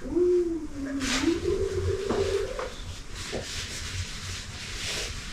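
A man humming one wavering note for about two and a half seconds, followed by rustling and a few light knocks of handling noise.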